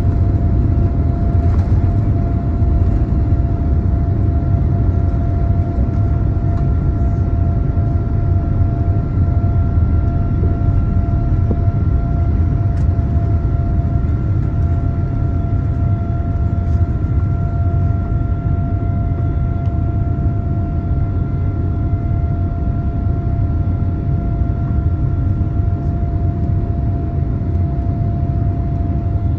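Cabin noise inside a Boeing 787-9 during takeoff: the Rolls-Royce Trent 1000 engines and the airflow make a steady, loud low roar, with a steady whine from the engines on top.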